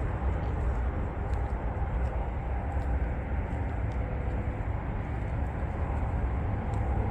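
Steady rumble and hiss of freeway traffic from the nearby interstate, heaviest in the low end.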